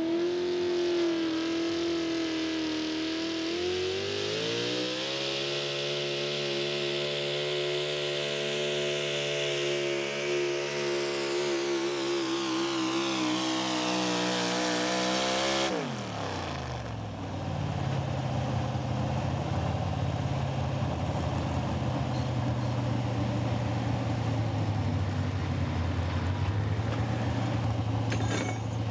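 Pro stock 4x4 pulling truck's engine held at high revs as it drags the sled down the track, climbing further about four seconds in. About sixteen seconds in the throttle is cut suddenly, and the revs drop to a steady low run for the rest.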